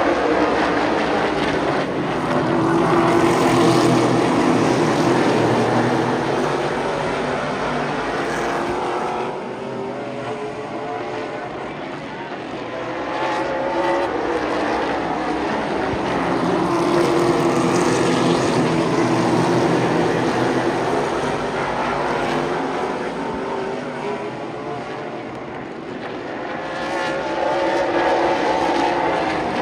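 A pack of Super Late Model stock cars' V8 engines running around a short oval. The sound swells as the cars pass close and fades as they go down the far side, about every 13 seconds, with the engine pitch rising and falling through the turns.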